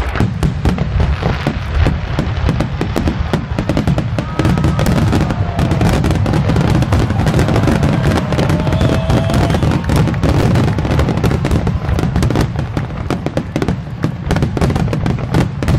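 Aerial fireworks going off in a rapid, continuous barrage: many shell bursts and crackles in quick succession over a constant low rumble.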